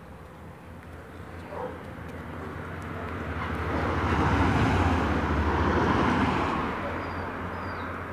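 A motor vehicle passing by on the road, growing louder to a peak in the middle and then fading away.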